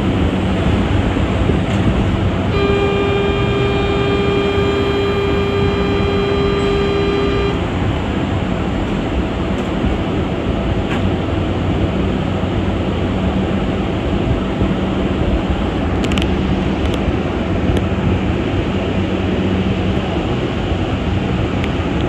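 Mexico City Metro Line 2 rubber-tyred train running, a steady loud rumble and hiss. A few seconds in, a steady tone sounds for about five seconds over it.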